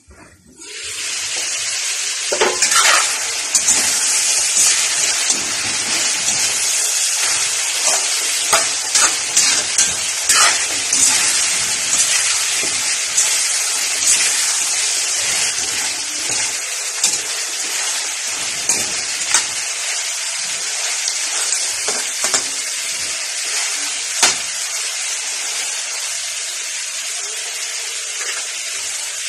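Chicken adobo sizzling and frying in a metal wok, the hiss starting about a second in as the lid comes off. A metal spatula stirs and scrapes the pieces, making frequent sharp clinks against the pan.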